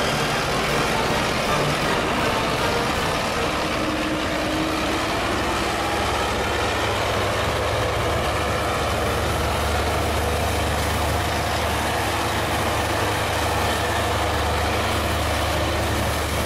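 A snow-clearing tractor's diesel engine running steadily, its low hum growing stronger about six seconds in.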